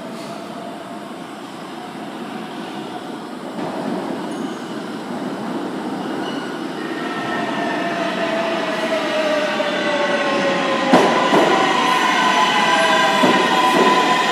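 An R142/R142A New York City Subway train arrives at the station, its running rumble growing steadily louder. From about halfway in come several high squealing and whining tones, one sliding down in pitch as the train slows. Sharp clacks from the wheels over rail joints sound about 11 seconds in and again near the end.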